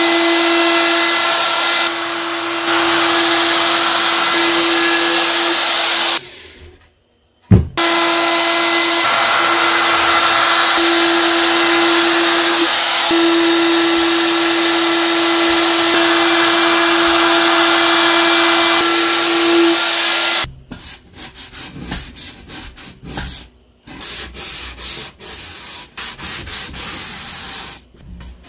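DeWalt compact router running at speed as it cuts the edge profile on an end-grain hardwood cutting board: a loud, steady high whine that stops briefly about six seconds in and then starts again. From about twenty seconds in it gives way to irregular rubbing strokes of sandpaper by hand on the wood.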